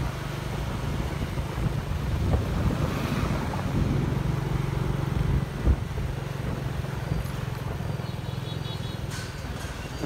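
Motorbike engine running steadily while riding along a street, with a brief knock a little past halfway.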